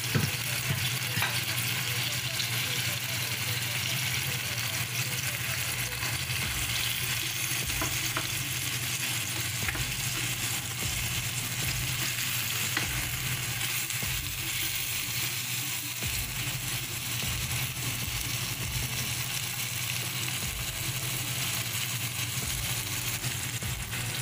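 Pork, onions and freshly added shrimp paste sizzling steadily in a stainless steel frying pan while a spatula stirs them, with a few light knocks of the spatula on the pan. A steady low hum runs underneath.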